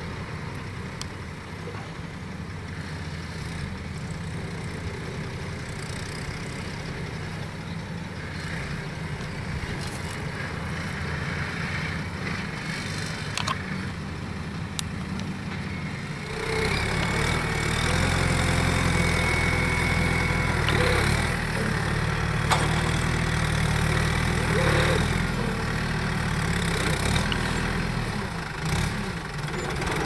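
Kubota loader tractor's diesel engine running, faint and distant at first, then louder and nearer from about halfway.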